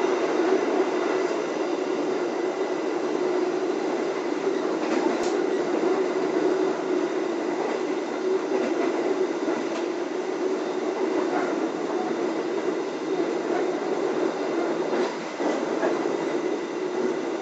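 Steady running noise of an Indonesian K3 2016 economy passenger coach at about 95 km/h, heard inside the coach: wheels rolling on the rails and the car body rumbling, with a few faint clicks.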